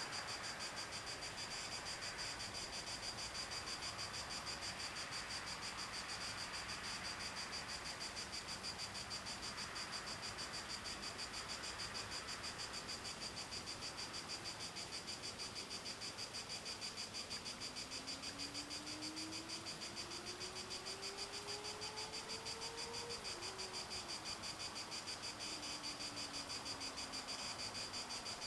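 Crickets chirping in a steady, high, pulsing trill. About two-thirds of the way through, a faint hum rises slowly in pitch, then drops and fades.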